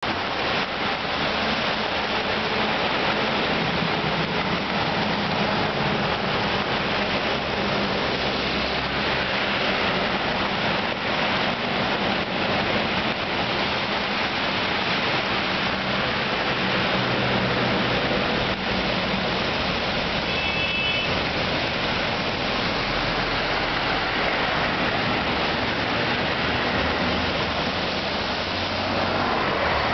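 Steady rush of heavy rain together with cars and a bus driving through deep floodwater, their tyres throwing up spray, with engines running underneath. A short high-pitched tone sounds once about two-thirds of the way through.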